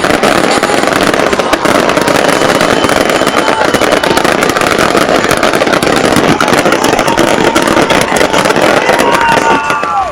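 Fireworks display: a loud, dense, continuous barrage of crackling bangs. It cuts off shortly before the end.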